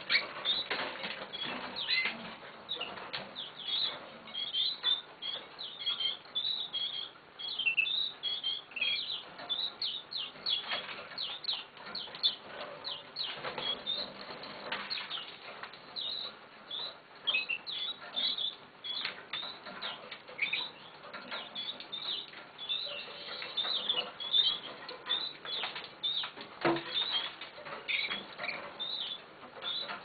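Red factor canary and its youngster in a wire cage: a near-continuous run of short, high cheeps and chirps, mixed with wing flutters and light clicks, while the adult feeds the young bird.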